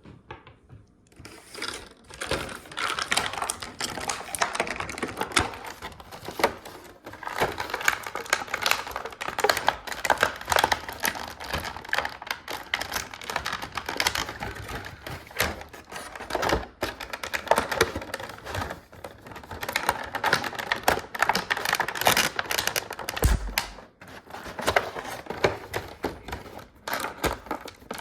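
Plastic toy packaging being handled and opened, giving dense, rapid clicking and crackling, with one low thump near the end.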